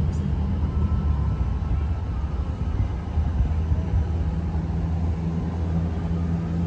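Diesel commuter train running at the platform: a steady low engine hum and rumble, with a deeper drone joined by a firmer second tone from about four seconds in.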